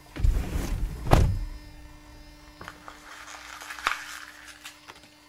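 Car door shutting with a heavy thud about a second in, after a moment of low rumbling movement, followed by a few light clicks and knocks.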